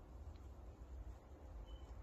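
Quiet outdoor background: a low, unsteady rumble with faint hiss, and one brief, faint high tone near the end.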